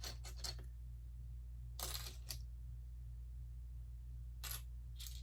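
Plastic Lego pieces clicking and rattling as they are picked up and handled: a quick cluster of clicks at the start, a short rustle about two seconds in, and two more clicks near the end.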